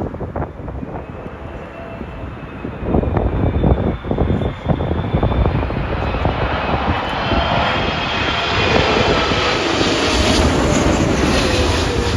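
Jet airliner on final approach to land, its engine whine and roar growing louder as it comes in low overhead, with the whine dropping slightly in pitch near the end. Gusty wind buffets the microphone.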